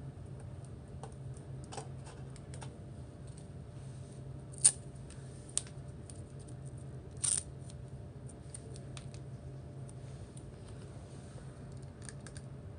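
Scattered light clicks and taps of plastic monitor parts being handled, with one sharp click about four and a half seconds in and a short clatter near seven seconds, over a low steady hum.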